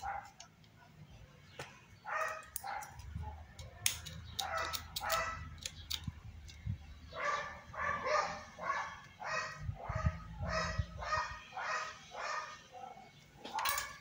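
A dog barking over and over in short, high barks, first in brief runs and then in a steady run of about two barks a second through the second half. Faint clicks and handling noise come from hands working at the opened hair dryer's motor shaft.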